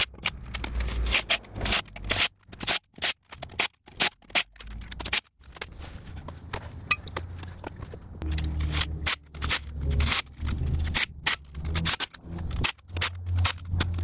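Lug nuts being fitted and tightened on a Jeep Grand Cherokee wheel with a cordless driver and by hand: a run of irregular metallic clicks, rattles and scraping.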